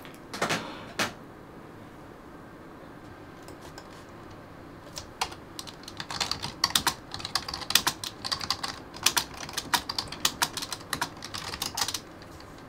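Typing on a computer keyboard: a quick, uneven run of key clicks that starts about five seconds in and stops near the end. Two short sounds come about half a second and a second in, before the typing.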